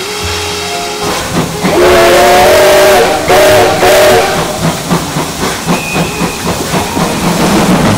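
Steam whistle of the JNR Class C11 tank locomotive C11 207, sounding two blasts, the first longer than the second, followed by a rapid, even beat of exhaust chuffs from its chimney as the locomotive works along.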